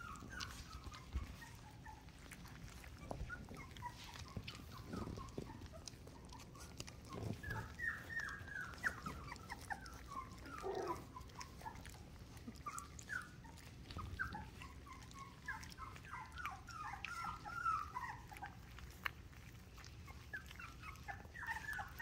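Australian Shepherd puppies eating mash from a plate: wet lapping and smacking clicks, with frequent short, high whimpers and squeaks that come in clusters through the middle and near the end.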